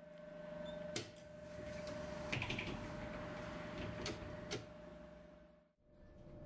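Inside a Duewag M6D tram at a stop: a steady electrical hum with a steady whine, and a few sharp clicks and a short rustle as the folding passenger doors open. The sound cuts off shortly before the end.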